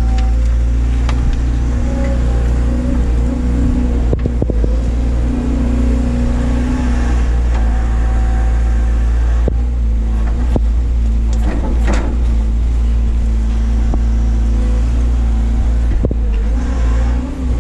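Doosan DX180 excavator's diesel engine running steadily under load, with a hydraulic whine that swells and fades as the machine works. Several sharp clunks come through, the loudest about two-thirds of the way in.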